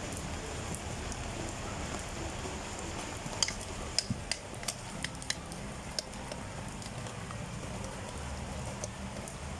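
Steady hiss of heavy rain, with a few light clicks and taps of utensils and a plastic pitcher being handled about three to six seconds in.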